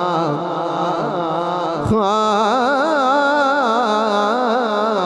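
Man's voice singing a Punjabi naat into a microphone, drawing out long, wavering ornamented notes between the words of the verse. There is a short knock about two seconds in.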